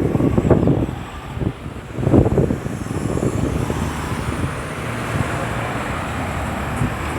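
Busy road traffic going by at a roundabout, with a steadier rush of passing vehicle noise building from about three seconds in. Gusts of wind buffet the microphone in the first couple of seconds.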